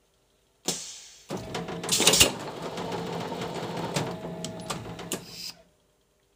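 Plastic-bottle blow-moulding machine cycling. A sudden hiss of air is followed by a few seconds of steady mechanical clatter, with sharp clanks as the steel mould halves open and close around the extruded parison. The sound stops suddenly.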